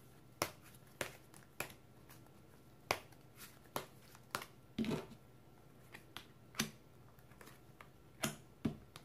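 A deck of oracle cards being shuffled by hand: soft, irregular clicks and slaps of card on card, about a dozen, then two cards laid down on the table.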